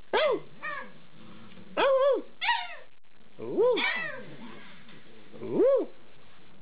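Eight-week-old Alaskan Malamute puppies vocalising: about six short calls, each rising then falling in pitch, with brief pauses between them.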